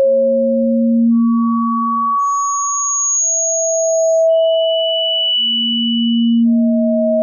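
Electronic sine tones sounding one after another at different pitches, each held about two seconds and overlapping the next, so two pure tones sound together most of the time. They jump from a low hum to middle tones, a high whistle, and back to the low hum. This is a tone sequence played for tinnitus relief.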